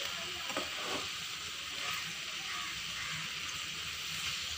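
Chopped tomatoes frying in a hot pan, a steady sizzle.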